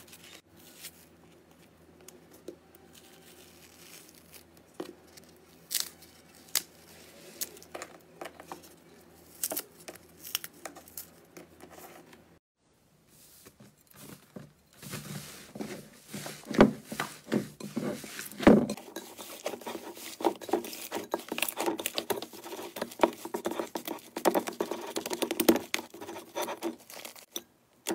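Slime being squeezed and stretched by hand, with sparse sharp crackles and pops. After a brief break about twelve seconds in, a denser, louder run of crackling and squishing follows.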